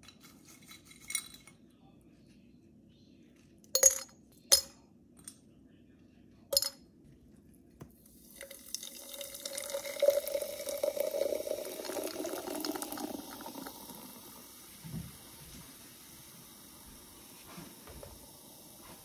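Ice cubes dropped into a glass jar, a few sharp clinks on the glass. From about eight seconds in, sparkling water is poured over the ice, splashing and fizzing, and the pour then settles into a steady carbonated fizz.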